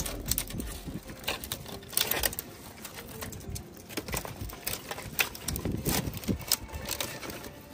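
Irregular clicks and knocks, scattered through, with several louder ones.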